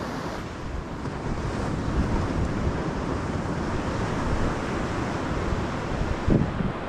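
Ocean surf washing onto the beach, with wind buffeting the microphone as a low rumble; a brief louder low thump about six seconds in.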